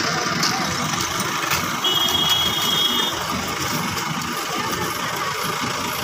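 Vehicle engines idling in a steady outdoor din, with a brief high steady tone for about a second, two seconds in.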